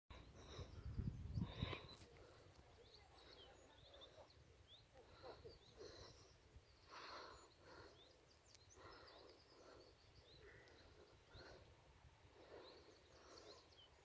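Near silence outdoors: faint, scattered bird chirps, with a brief low rumble and a click on the microphone in the first two seconds. No train is heard yet.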